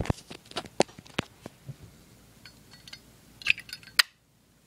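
Brushed chrome Zippo lighter being handled: a string of small metal clicks and taps, then a cluster of short ringing clinks about three and a half seconds in, cut off abruptly at about four seconds.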